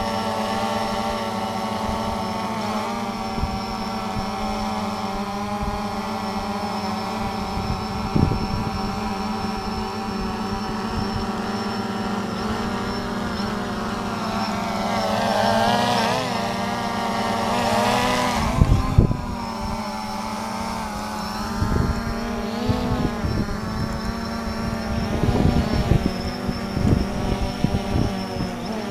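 DJI Phantom 3 Standard quadcopter hovering on carbon fiber folding propellers, a steady many-toned propeller buzz; the owner says these props set up a harmonic vibration that makes the drone hard to control. The pitch wavers about halfway through, and several low thumps come in the second half.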